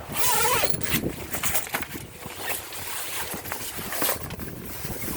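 Rustling and knocking handling noises from a canvas Bimini boot cover being pulled into place, with a loud rush of noise in the first second followed by scattered clicks.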